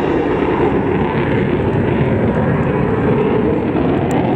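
Curtiss P-40 Warhawk's liquid-cooled V-12 engine running steadily as the fighter flies overhead.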